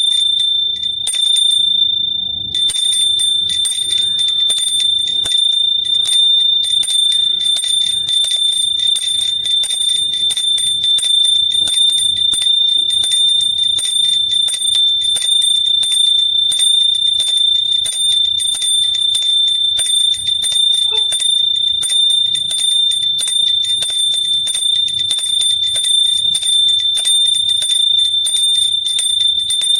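A small hand bell rung rapidly and without stopping: one steady high ringing tone under a fast, dense patter of clapper strikes. There is a short break in the strikes about two seconds in.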